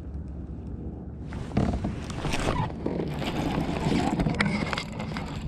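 Steady wind on the microphone over a kayak on open water. From about a second and a half in come irregular knocks and clatter as fishing gear is handled on the kayak.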